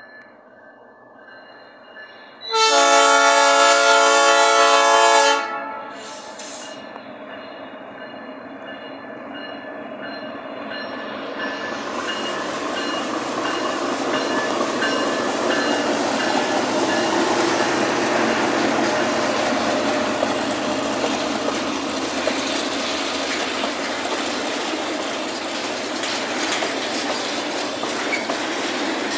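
Diesel freight locomotive sounding one long horn blast, a chord of several tones lasting about three seconds, as it nears the crossing. Then the train passes, and the engine and the wheels clattering over the rails grow louder and stay steady.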